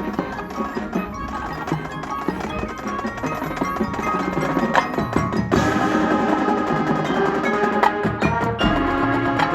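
High school marching band playing, with front-ensemble mallet percussion, chimes and wood block over the band; the music gets louder about halfway through.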